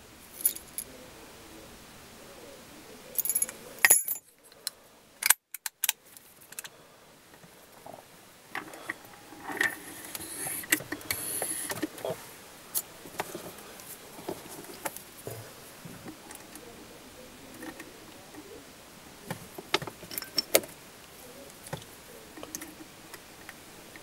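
Scattered small metal clicks and rattles from handling a Master Lock padlock, its brass key and a lock pick, with a few louder clicks about three to four seconds in and the sound cutting out briefly around five seconds in.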